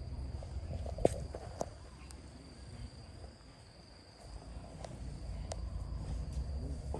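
Insects droning with one steady high-pitched tone, over a low rumble. A few sharp clicks and taps cut in, the loudest about a second in.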